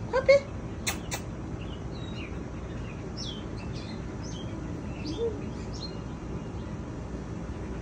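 Small birds chirping in short, scattered high calls over a steady outdoor background noise. Right at the start there is a short rising vocal sound, the loudest thing here, followed by two sharp clicks about a second in.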